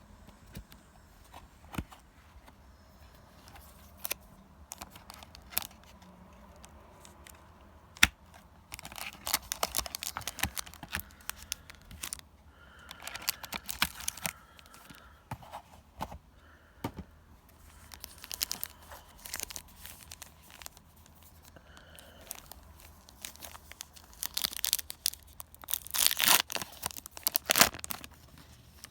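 Trading-card booster pack wrappers being torn open and crinkled, in two main bouts: one about a third of the way in and a louder one near the end. Scattered sharp clicks and taps of handling come between them.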